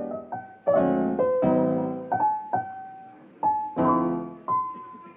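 Background piano music: chords and single notes struck roughly once a second, each ringing on and fading away.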